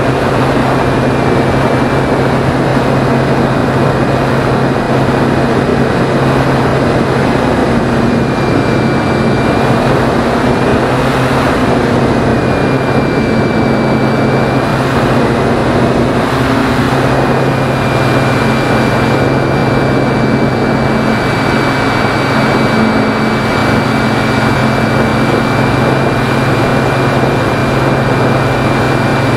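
Phoenix 2000 RC motor glider in flight, heard from its onboard camera: a steady rush of air over the microphone with a thin whine from the electric motor and propeller that drifts slightly in pitch.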